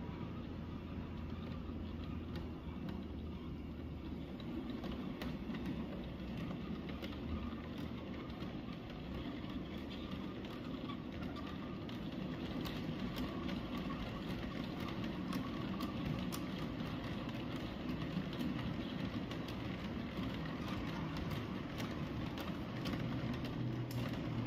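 A model freight train of tank wagons rolling past on model track: a steady rumble with many irregular light clicks of the wheels over the rail joints.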